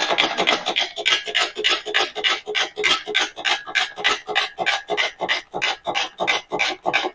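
A chain hoist ratcheting as its chain is let out to lengthen it: a quick, even run of rasping clicks, about five a second.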